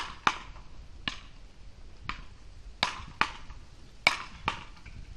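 Beach paddle ball rally: solid paddles striking the ball back and forth in sharp cracks, about eight hits, several of them following each other closely in pairs.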